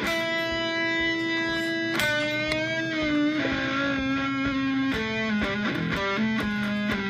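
Background music: a guitar playing long held single notes, one bent in pitch about two to three seconds in.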